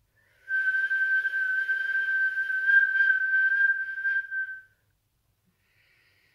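A long whistled breath through pursed lips in the whistling Sitali pranayama: one steady high note held for about four seconds with an airy hiss of breath around it, then stopping.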